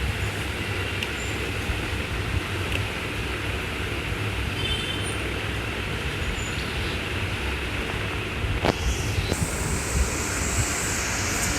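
A cardboard printer box being opened over a steady low background rumble: a couple of knocks about nine seconds in, then rustling of the packaging to the end.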